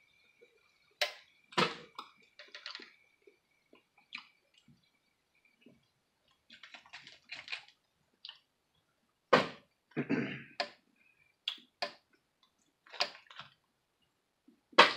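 Eating a seafood boil: mussel shells clicking and clattering as the meat is picked out, with chewing in between. It is a scatter of sharp clicks, the loudest about nine seconds in and again near the end.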